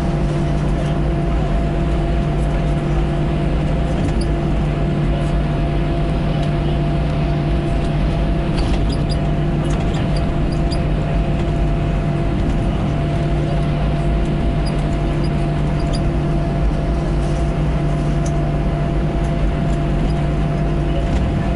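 Cabin noise inside an Airbus A321 taxiing: a steady drone of the engines at taxi power and the cabin air, with a low hum and a couple of steady higher tones, and a few faint ticks.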